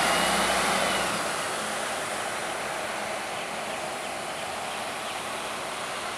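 Buses driving away along a road: engine and tyre noise that fades over the first two seconds, then a steady wash of traffic noise.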